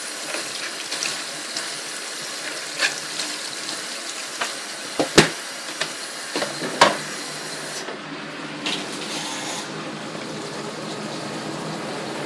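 Water running steadily into a twin tub washing machine's tub for a rinse, with several sharp knocks and clunks over it. The loudest knock comes about five seconds in.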